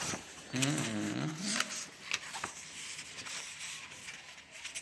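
Paper pages of a printed book rustling and scraping as it is handled and leafed through, with a brief pitched voice-like sound about half a second in.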